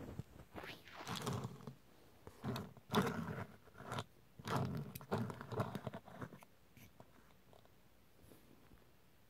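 A die-cast Hot Wheels car being handled and turned around on a cloth mat: irregular scraping and rustling with a few small clicks for about six seconds, then quieter.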